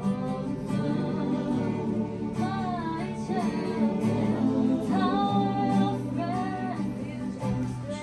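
Worship song: a singing voice carrying a melody over guitar accompaniment.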